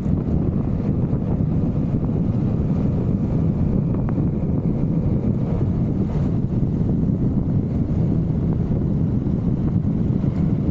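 Steady wind noise buffeting the microphone of a Vespa GTV 300 scooter riding at an even speed.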